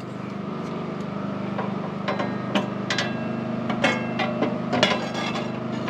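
Light metal clinks and knocks, a dozen or so from about two seconds in, as a 15-inch steel-cutting saw blade is handled and slid onto the arbor of a metal-cutting chop saw; some clinks ring briefly. A steady low hum runs underneath.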